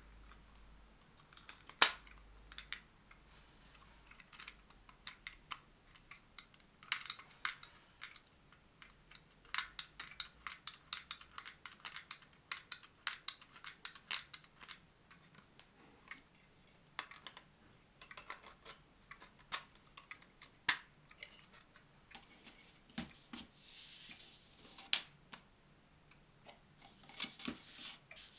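Irregular clicks and taps of hard 3D-printed plastic clock parts and a quartz clock movement being handled and fitted, with a sharp snap about two seconds in. There is a dense run of rapid clicks in the middle and a few scattered ones near the end.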